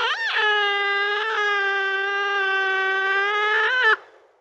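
Otter calling: a brief wavering whine, then one long, steady, drawn-out squeal that cuts off suddenly near the end.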